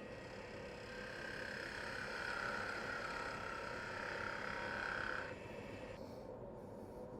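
Wood lathe running with sandpaper held against the spinning black walnut workpiece: a steady whirring hiss with a whine, louder from about a second in until just past five seconds, when the sandpaper comes away and only the lathe's hum is left.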